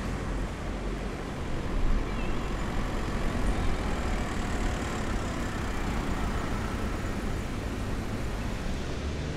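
Steady city traffic noise: a continuous low rumble of road vehicles going by.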